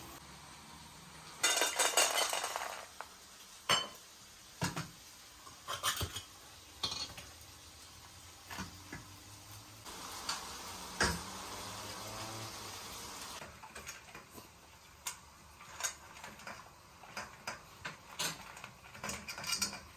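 Feeding-time sounds with a French bulldog. A loud scraping rasp comes about two seconds in, with the pull-tab can of dog food in hand. Scattered metal clinks follow, and in the last seconds the dog eats kibble from a stainless steel bowl, the pieces clicking rapidly against the metal.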